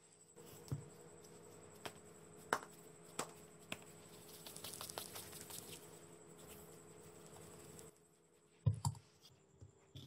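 Hands working soft dough on a floured wooden board, rounding the pieces into balls: faint scattered soft taps and light rubbing, with two louder knocks shortly before the end.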